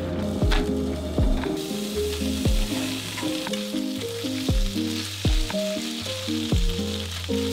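Carrot strips and shirataki noodles sizzling in hot oil in a frying pan, stirred with chopsticks, with a steady frying hiss. Background music with a bass line and a kick-drum beat about once a second plays over it.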